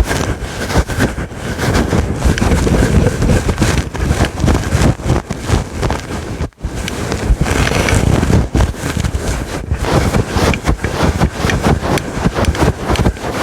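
Fast, rough scratching on a fluffy furry microphone windscreen, a loud rustling rumble of rapid strokes with a brief pause about halfway through.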